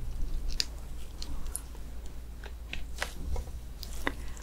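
Scattered small, wet clicks and soft squishes, close-miked: a gloved hand handling a piece of stewed muscovy duck meat, along with mouth sounds.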